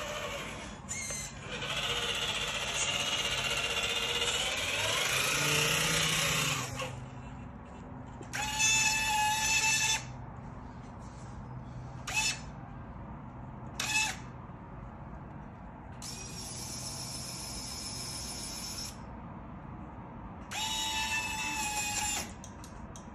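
Traxxas Ultimate RC Hauler's electric drive motor and gears whining as the truck drives for the first several seconds. Then a small electric motor whines in short spurts as the roll-back bed is worked: one of about a second and a half, two brief ones, and another near the end.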